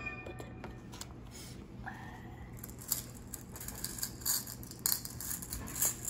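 Plastic packaging crinkling and rustling in irregular bursts with small clicks, starting about halfway through, over a faint steady hum.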